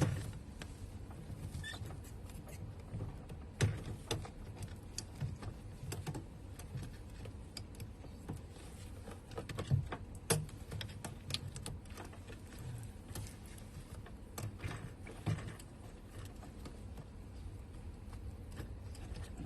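Scattered clicks and knocks of hand work on a fuel pump module and its plastic fuel line, irregular, with a few louder knocks about four seconds in and near the middle.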